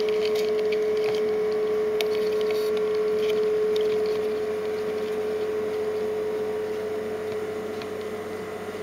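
Steady machine hum at one pitch, with a few light clicks in the first few seconds; it gets somewhat quieter after about four seconds.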